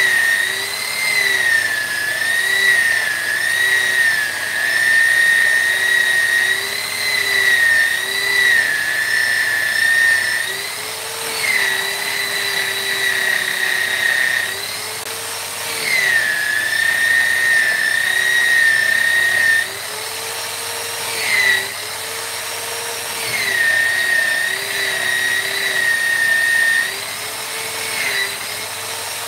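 A high-speed electric rotary carving tool running with a steady high whine, its pitch dipping briefly and recovering each time it bites into the wood.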